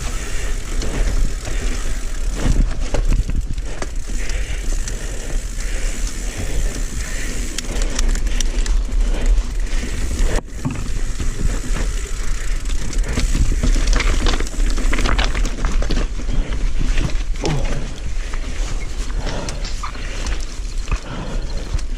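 Mountain bike riding on a dirt trail, heard from a camera on the bike or rider: wind buffeting the microphone in a low rumble, with tyres on dirt and a steady clatter of rattles and knocks from the bike over bumps.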